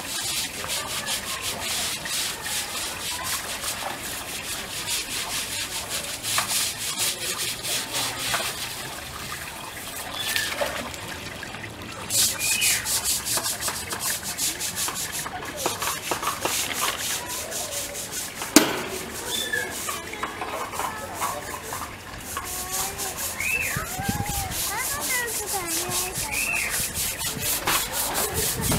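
Humboldt penguin splashing as it bathes and swims, a rapid, continuous patter and slosh of water, with a few short high calls in the background.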